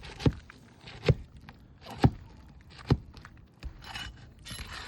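Four sharp knocks about a second apart, then a short scrape near the end, as a tool works a roof shingle loose for removal.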